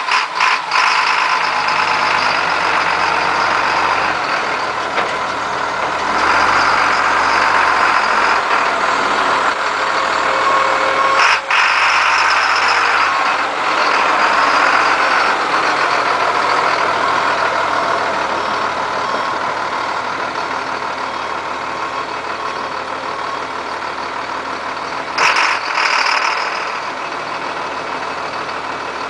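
Ford F-650 hook-lift truck's engine running as the truck moves about and then starts to raise the dump box. It is louder through the first half and settles lower and steadier later, with a click about 11 seconds in and a brief hiss near the end.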